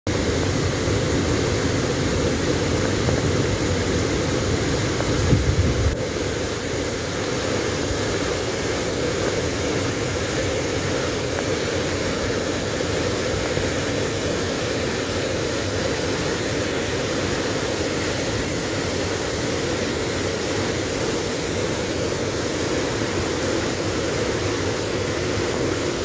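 Steady, even rush of a waterfall, deep and unbroken, with a brief low rumble about five seconds in.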